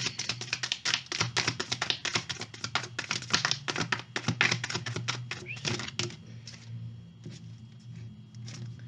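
A deck of message cards being shuffled by hand: a rapid run of card clicks for about six seconds, then a few scattered ones.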